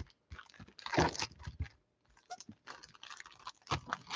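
Foil wrapper of a Donruss Optic football card pack being torn open and crinkled by hand, in irregular crackling bursts, loudest about a second in.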